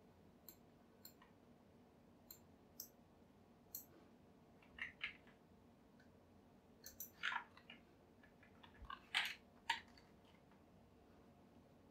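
Computer mouse and keyboard clicks: spaced single clicks, then quicker clusters of clicks from about five seconds in, against a quiet background.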